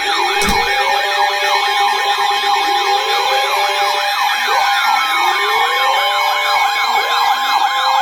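Electronic sirens overlapping: a fast yelp sweeping up and down about four times a second, over slower rising wails that wind up every couple of seconds, with steady alert tones beneath. A brief thump about half a second in.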